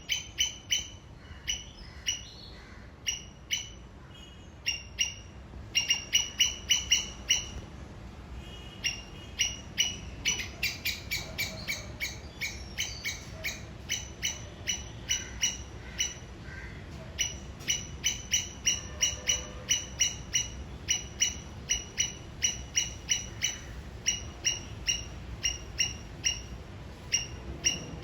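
Squirrel giving a repeated sharp chirping alarm call, short calls in quick runs of several a second broken by brief pauses, signalling at a threat.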